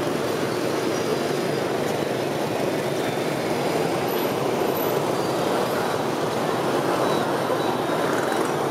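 Dense motorbike and scooter traffic in gridlock: many small engines running at once, blending into a steady, unbroken drone.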